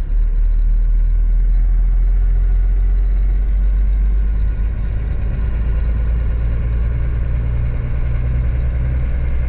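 Truck engine running steadily, a continuous low drone.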